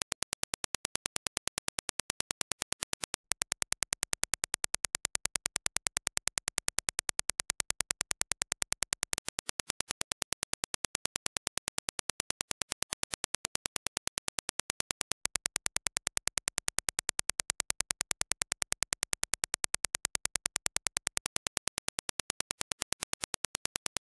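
Dirac impulse test signal: a rapid, evenly spaced train of sharp clicks, several a second. It steps louder about three seconds in, softer about nine seconds in, louder again about fifteen seconds in and softer near the end.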